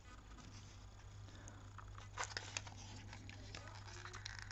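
Faint handling noise of a cardboard display box and a small die-cast model car being turned over in the hands: soft rustles and light ticks, with a few sharper clicks a little over two seconds in.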